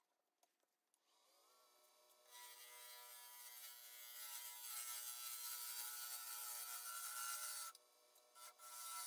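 Wood lathe motor spinning up about a second in, then a turning tool cutting the spinning cherry burl blank: a steady shaving hiss over the motor's whine. The cut stops briefly near the end and then starts again.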